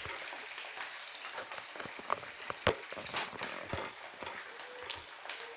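Chicken pieces deep-frying in hot oil: a steady sizzle with scattered crackling pops.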